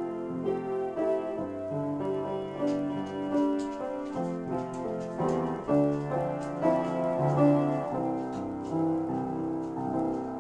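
Upright piano played in an improvisation: chords and melody notes overlapping and ringing on.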